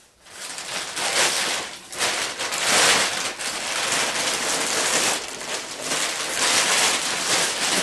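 A black plastic garbage bag being pulled open and handled, giving a steady crinkling, crackling rustle with louder swells.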